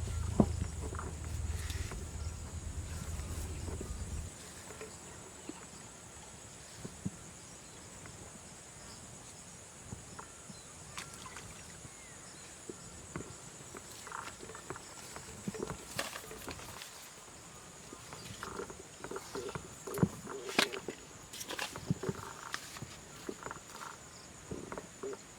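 Steady high-pitched insect chirring, cricket-like, with a low rumble that stops about four seconds in and scattered short clicks and knocks later on.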